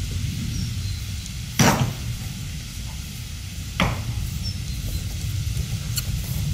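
Two sharp cracks about two seconds apart, the first the louder, over a steady low rumble.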